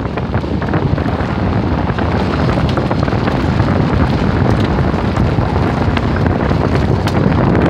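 Heavy wind buffeting a phone microphone held out the window of a car driving fast on a dirt road, with the car's road and engine noise mixed in. It is a loud, steady rumbling rush throughout.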